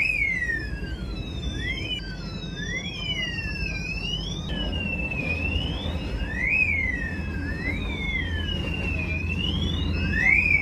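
Vande Bharat train's fire alarm going off: several wailing tones, each sliding up and down in pitch and overlapping out of step, over a steady low rumble. The uploader puts the alarm down to a technical issue, not a fire.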